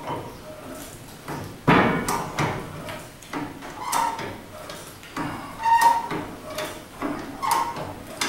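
Steel lifting chain and chain hoist clanking as the hoist is worked to roll over a heavy steel welding table. There are a few separate, sudden metallic clanks, some with a short ring.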